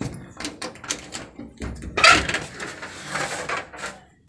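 A run of short clicks and knocks from clothes and household things being handled, with a louder clatter about two seconds in and rustling after it.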